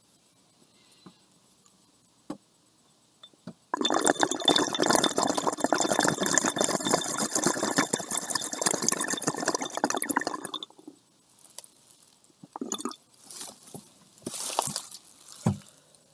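Water bubbling hard inside a glass oil rig as a dab is drawn through it, starting about four seconds in and running for about six seconds before cutting off. A few brief, quieter bursts follow near the end.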